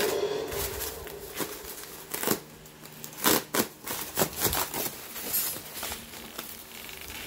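A puppy biting and tearing at a sheet of expanded polystyrene foam: irregular crunches and snaps of the foam breaking, densest between about two and five seconds in, then thinning out.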